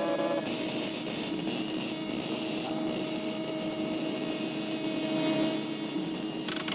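Steady mechanical whirring and humming with held tones underneath: a cartoon sound effect of a large electric machine running.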